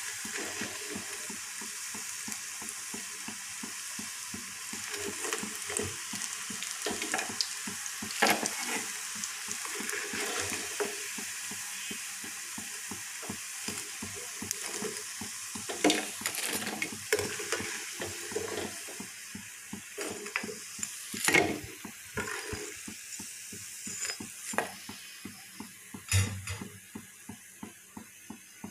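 Battered cauliflower pakoras frying in hot oil in a karahi, the oil sizzling while a metal spoon lifts them out with sharp clinks and scrapes against the pan. The sizzle grows fainter as the pan empties.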